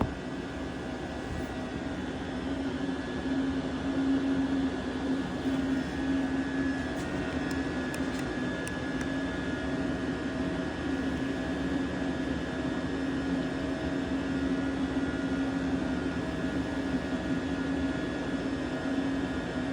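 Diesel air heater running steadily: its blower and burner give an even hum with a whine. A few faint ticks come about seven to nine seconds in.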